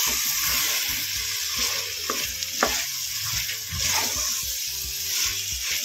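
Vegetables and curd sizzling in hot oil in a pressure cooker pan while a spatula stirs them, with a few sharp scrapes and knocks of the spatula against the pan.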